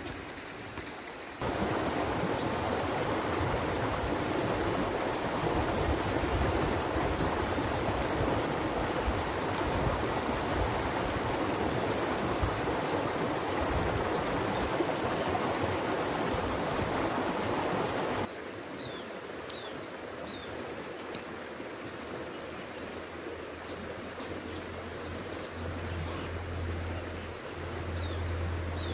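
River water rushing steadily, then a sudden cut about two-thirds in to a quieter forest background with birds chirping in short high notes. A low steady hum comes in near the end.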